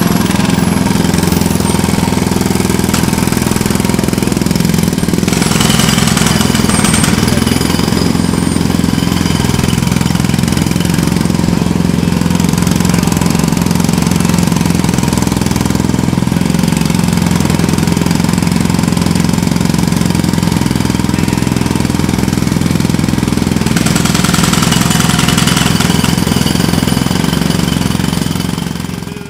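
Heavy construction machinery running loudly and steadily with a rapid mechanical pounding, fading out at the very end.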